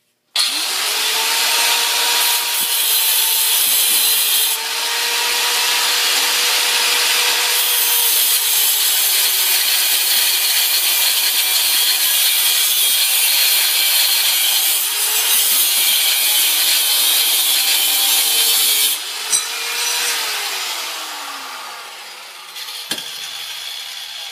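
Angle grinder cutting through steel bar stock held in a vise: the motor starts about half a second in, and a loud grinding noise with a steady motor whine runs for about 18 seconds. Then the cut is through and the grinder spins down with a falling whine, with a single knock near the end.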